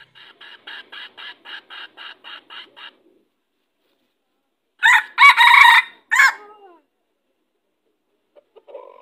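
Red junglefowl rooster crowing once, loud and fairly short, about five seconds in. Before it comes a quick run of about a dozen soft clucks, about four a second.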